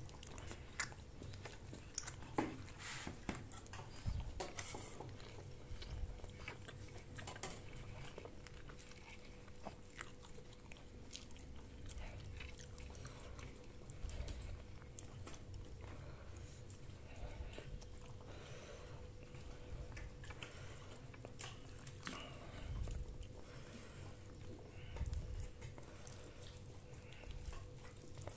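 Faint sounds of people eating a meal: chewing and biting, with scattered small clicks and taps, over a faint steady hum.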